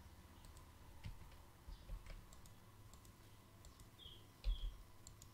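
Faint computer mouse clicks and keyboard keystrokes, scattered and irregular, the loudest about four and a half seconds in.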